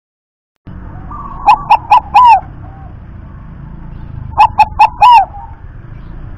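Zebra dove (perkutut) singing its staccato coo: two quick phrases of four sharp notes each, about three seconds apart, over a low steady background rumble. The sound drops out completely for the first half-second.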